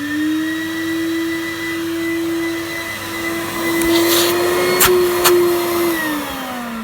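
Numatic WVD902 twin-motor industrial wet/dry vacuum running with a steady whine, its filter blocked so that it draws no suction. Two sharp clicks come about five seconds in. Near the end it is switched off and the pitch drops as the motors wind down.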